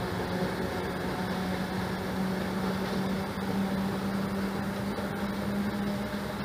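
DDB1 diesel train's diesel engine working hard as the train pulls away: a steady low drone with one strong held tone, fading a little toward the end as it moves off.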